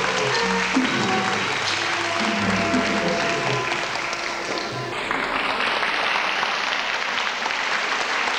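Live Thai classical ensemble music with pitched melodic notes, stopping about five seconds in, followed by audience applause.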